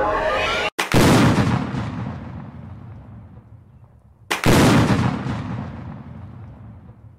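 Two heavy cinematic boom hits, each striking suddenly and fading away over about three seconds. The first comes about a second in, right after a rising synth sweep cuts off; the second comes about three and a half seconds later.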